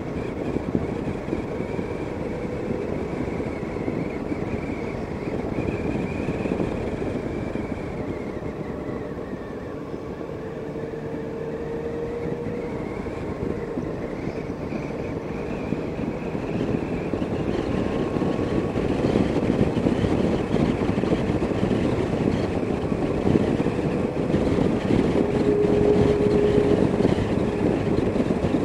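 Motorcycle engine running under wind rush on a helmet-mounted camera, the engine note rising and falling with the throttle. It grows louder past the middle as the bike picks up speed.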